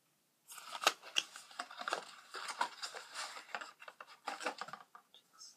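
A small cardboard gift box being opened and handled: irregular rustling, scraping and sharp clicks of the cardboard, starting about half a second in.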